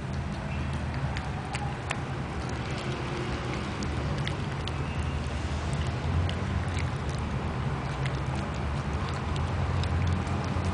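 A small dog chewing pieces of raw carrot, making irregular sharp crunching clicks over a steady low hum.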